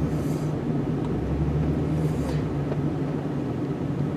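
Snow-plow truck's engine running steadily at low revs while the truck maneuvers on the driveway, with two brief hisses near the start and about two seconds in.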